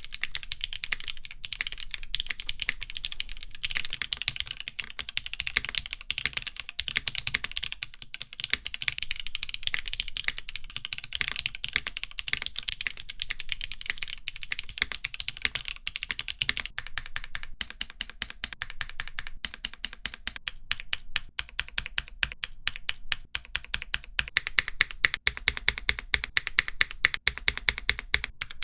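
Typing on a Graystudio Macross 65 mechanical keyboard with Cherry MX Black linear switches on an aluminum plate: a steady run of keystroke clicks and clacks. The strokes come quicker and more evenly in the second half.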